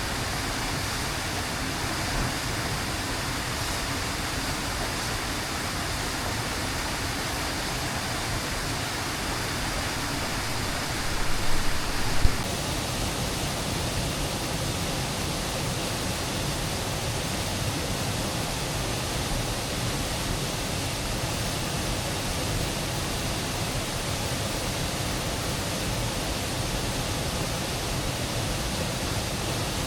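A steady rush of water noise, such as heavy rain or running water in a forest. About eleven seconds in there is a brief louder stretch of rustling that ends in a sharp knock, and after it the rush sounds a little duller.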